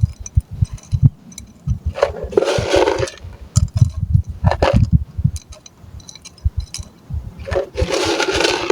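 Coarse crushed stone (gravel) being handled and poured into a clay pot, with scattered low knocks of stones being set in place and two rattling pours about two seconds in and near the end.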